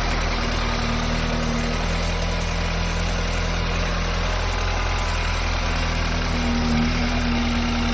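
An engine running steadily at idle, with a constant low hum and no change in speed.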